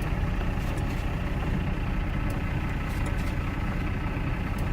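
Steady low rumble of an idling vehicle engine mixed with the hiss of strong blizzard wind.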